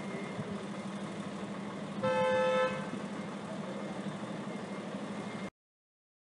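A vehicle horn honks once, a single steady tone about half a second long, about two seconds in, over a steady low street and engine hum. The sound cuts off suddenly about a second before the end.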